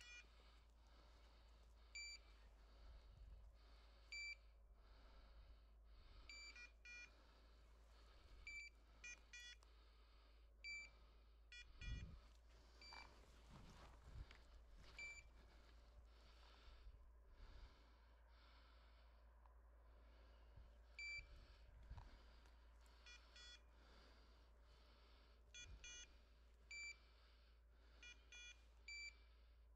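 Faint electronic beeps from a hunting dog's beeper collar: a single high beep about every two seconds, with quick runs of several beeps here and there. A couple of low thuds come about midway.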